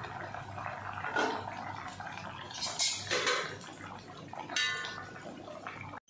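Thin fish curry boiling hard in an open aluminium kadai, bubbling and gurgling with uneven splashes.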